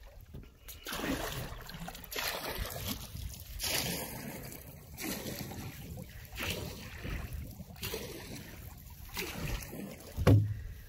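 Canoe paddle strokes through lake water: a splashing swish that comes again roughly every second and a half as the wooden paddle dips and pulls. Near the end there is a short low thump.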